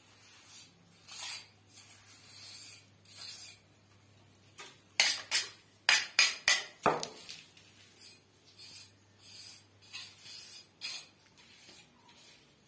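A mason's steel trowel working wet cement mortar: short scrapes about once a second, and a quick run of about eight sharp metallic clinks five to seven seconds in, as the trowel knocks and scrapes against a metal mortar pan.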